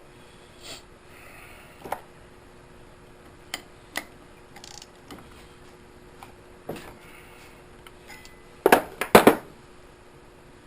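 Metal clinks and knocks of hand tools working on a small engine: a few scattered single taps, then a quick cluster of four or five louder metal strikes near the end.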